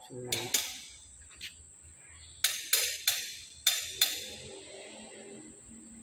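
Sharp metal-on-metal clinks, about seven in all: two close together just after the start, then a quicker run of five between about two and a half and four seconds in, each ringing briefly.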